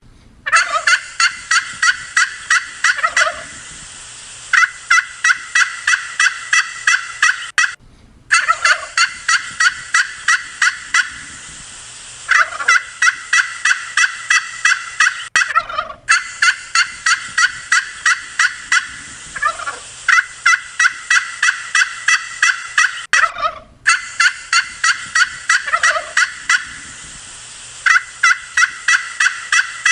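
Turkeys gobbling: runs of quick rattling notes, about four a second, each run lasting about three seconds with short pauses between. The same sequence comes around about every eight seconds.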